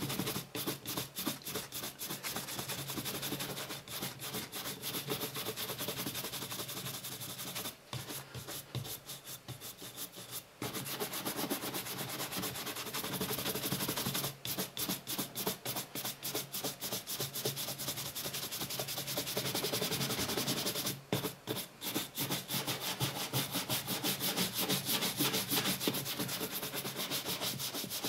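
Horsehair brush buffing dried shoe cream off a black leather parade boot, in rapid back-and-forth strokes with a few short pauses. This is the buffing stage that brings up the shine.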